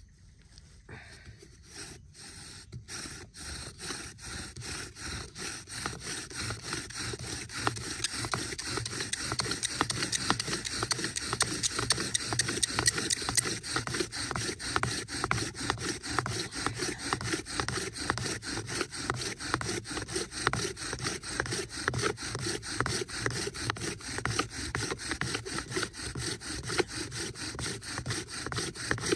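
Bow drill in use: the wooden spindle rubs in its socket on the wooden hearth board as the cord bow is drawn back and forth. A few slow strokes at the start settle into a fast, even back-and-forth rhythm that grows louder, then stops abruptly at the very end.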